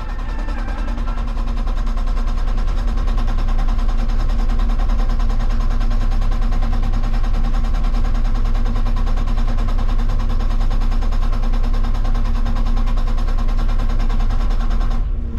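Hitachi 160 excavator working, running loud and steady with a rapid even pulse throughout. The sound stops abruptly near the end.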